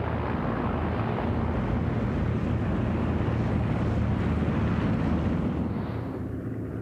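The Bristol Proteus turboprop engines of the Saunders-Roe Princess flying boat running at speed as it skims the water: a steady low drone under a rushing noise. The sound eases off about six seconds in.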